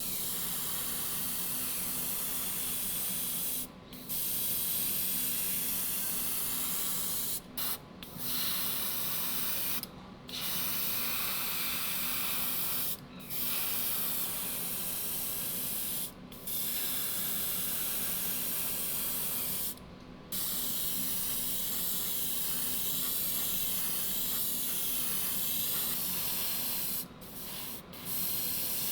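Compressed air hissing from a spray nozzle in long bursts of a few seconds, each cut by a brief break, over a steady low motor hum that keeps running through the breaks.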